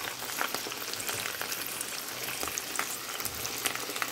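Raw chicken pieces frying in hot vegetable oil: a steady sizzle full of quick crackles and pops.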